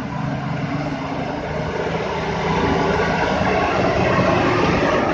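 Diesel engine of a loaded three-axle palm-fruit truck labouring steadily as it crawls through deep soft dirt, growing louder about halfway through as the truck comes closer.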